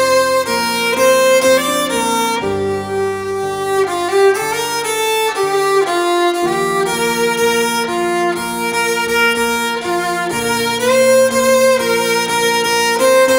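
Music accompanying a dance: slow held chords, changing about every four seconds.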